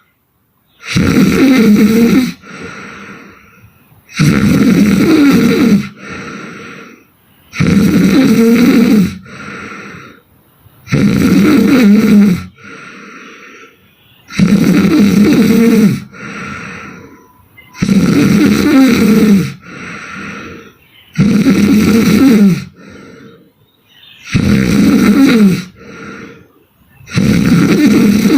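A woman snoring hard in her sleep: loud, rasping snores in a steady rhythm, about one every three and a half seconds, each followed by a softer breath.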